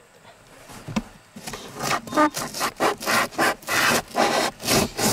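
A saw cutting with quick, even back-and-forth strokes, about two to three a second, starting about a second and a half in.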